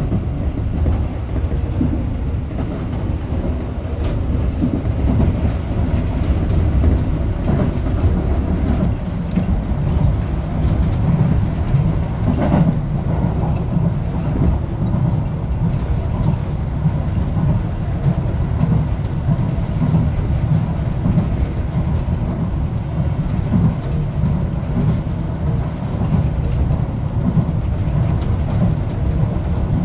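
Tobu 8000-series electric commuter train running along the line, with a steady rumble of wheels on rail and faint rail-joint clicks, heard from inside the front of the train.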